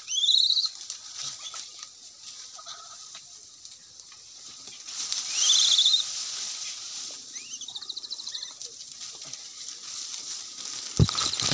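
An animal gives three short, high-pitched calls that rise in pitch: loud right at the start and again about five seconds in, fainter shortly after, over a steady high hiss. A single sharp thump comes near the end.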